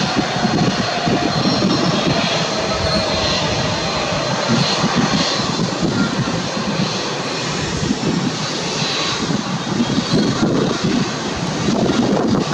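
Jet engines of a Boeing 787-10 airliner running during its landing rollout on the runway: a loud, steady roar. A faint whine sinks slightly in pitch in the first few seconds.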